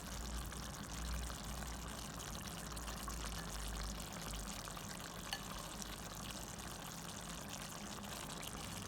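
Pot of fish and vegetables simmering in coconut milk: a steady bubbling hiss, with a small click about five seconds in.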